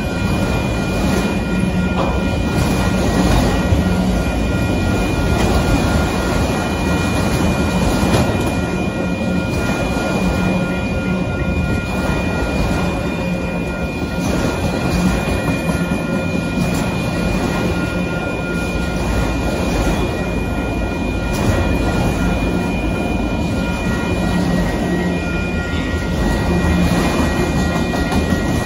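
Union Pacific freight train of autorack cars rolling steadily past at close range: a continuous rumble and clatter of steel wheels on the rails, with a few steady high tones over it.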